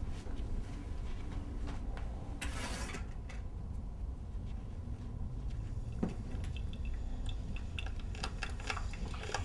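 Soft rustles and small clicks of a white wrap being wound tight around a hand, over a low steady room rumble. There is a brief louder rustle about two and a half seconds in, and a run of quick little crackles near the end.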